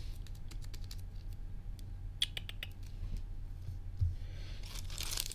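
Light clicks and rustles of a trading card being slid into a plastic card sleeve, then near the end the crinkle of a foil booster pack being picked up.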